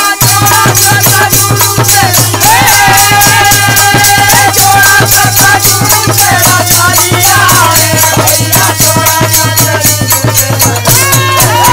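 Instrumental break in a Bhojpuri kajari folk song: fast, even jingling of hand-held jingle rings and small cymbals, with a harmonium playing long held melody notes from about two seconds in to the middle.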